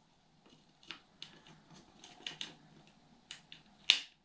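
A few small, scattered clicks and taps of battery leads and connectors being handled, the loudest about four seconds in.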